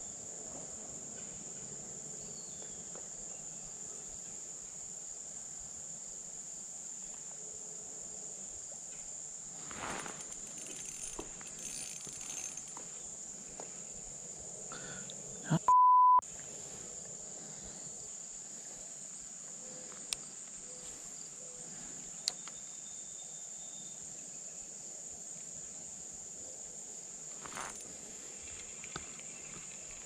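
Steady, high-pitched chorus of insects. A little past halfway, a loud, short, steady beep cuts in, with a few faint clicks and rustles here and there.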